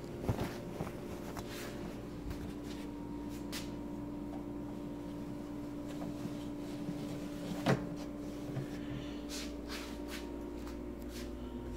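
Scattered clicks and knocks of things being handled, one sharper knock a little under 8 seconds in, over a steady low electrical hum.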